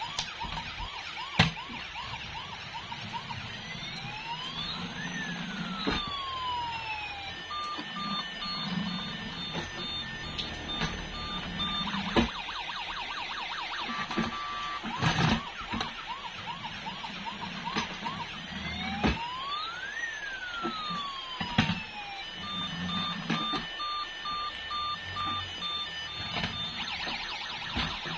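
The electronic sound chip of a battery-powered toy emergency vehicle plays siren effects: rising and falling wails, then rows of quick beeps and warbles, the sequence repeating about every fifteen seconds. A few sharp knocks break in, several seconds apart.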